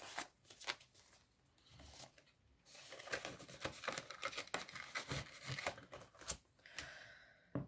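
Banknotes and the plastic zip envelopes of a ring-binder budget planner being handled: faint rustling and crinkling with scattered light clicks, as the binder's metal rings are worked.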